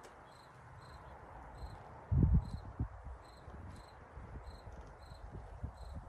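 A cricket chirping steadily in short, evenly spaced chirps, about one and a half a second. A brief dull thump about two seconds in is the loudest sound.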